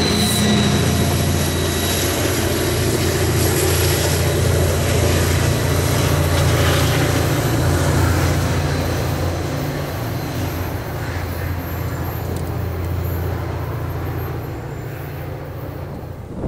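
Diesel locomotive at the rear of a push-pull commuter train running steadily with a low engine drone, along with wheel and rail noise, as the train moves away. It fades slowly over the second half.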